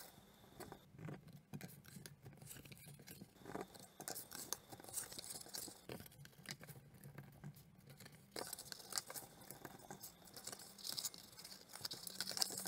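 Faint scratching, rustling and light taps of cardboard being creased with a bone folder, then handled and bent along its score lines, busier near the end.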